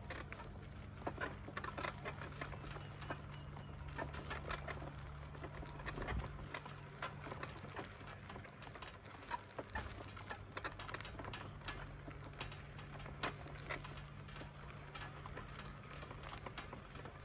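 Small wheels rolling over a rutted dirt road: irregular clicks, ticks and rattles from grit and the wheeled frame, over a steady low hum.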